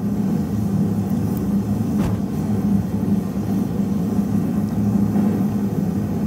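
Steady low roar while a hot steel blade is quenched in a bucket of oil, with one sharp clink about two seconds in.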